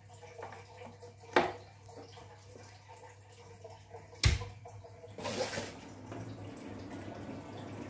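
Steady low electrical hum from a freshly powered Ashley Super M8 mixer and its sound system, with a sharp click a little over a second in and a loud thump about four seconds in as a microphone cable goes into the live mixer, followed by a brief hiss.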